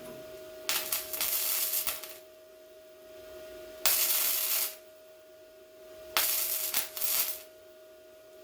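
Welder laying three short stitch-weld beads on the pickup's sheet-metal bed patch, each one a burst of crackling and sizzling about a second long with short pauses between.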